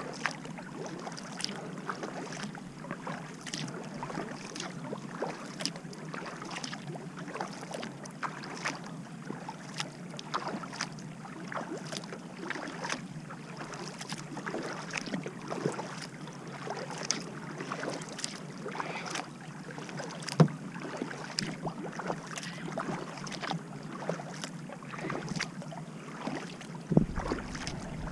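Kayak paddle strokes through calm water: the blades dipping and pulling, with water splashing, trickling and dripping in many small ticks over the wash of the bow wave along the hull. Two sharper knocks stand out, one past the middle and one near the end.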